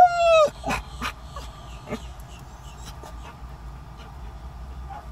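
Dog giving one loud, high whining yelp about half a second long right at the start, its pitch sagging at the end. A few sharp clicks follow, over a low steady hum.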